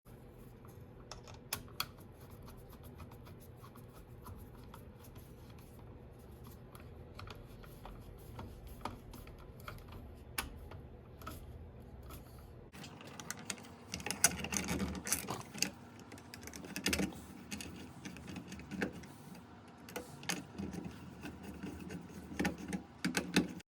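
Scattered small clicks and taps of hand work on a light switch and its wiring. About halfway through, a low background hum drops out and the clicking and clatter become busier and louder.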